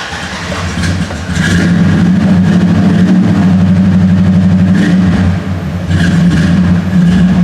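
A jump-started 383 big-block V8 cranking briefly, then catching about a second in and running steadily. The engine note dips for a moment around five seconds in and picks back up.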